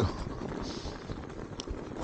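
Electric bike riding through deep snow: a steady crunching rush from the tyres with irregular knocks from the bike over the uneven track.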